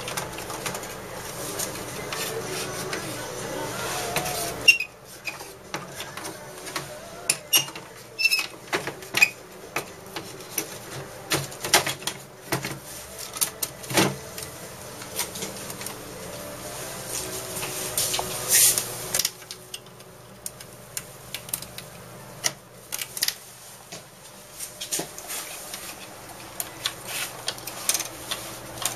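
Irregular clicks and knocks of plastic parts as an HP inkjet all-in-one printer is handled and taken apart by hand, over a low steady hum.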